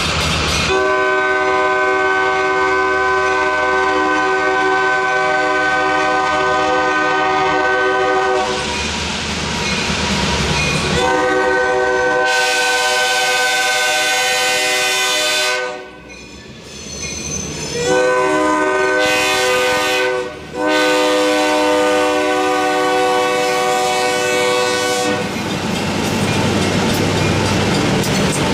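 Nathan K3LA three-chime air horn on an EMD GP38-2 locomotive blowing the grade-crossing signal: two long blasts, a short one, then a final long one. This is the warning for a road crossing. Between the blasts and after the last one, the train's rumble and wheel clatter on the rails are heard.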